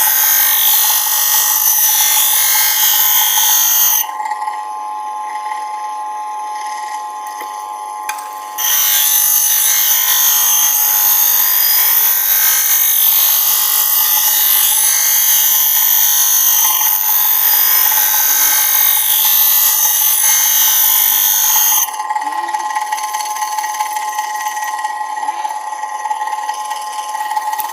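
Homemade planer-blade sharpening machine running with a steady whine while it grinds a planer blade. The harsh grinding hiss drops away about four seconds in, comes back about four seconds later, and drops away again about six seconds before the end, leaving the motor's whine.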